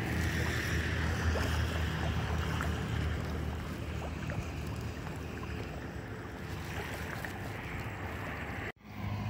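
Steady wind rumbling on the microphone with a low hum beneath it. It breaks off abruptly for a moment near the end.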